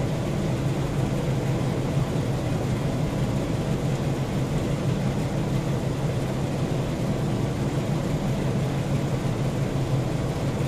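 Steady low mechanical rumble, like a motor or engine running at constant speed.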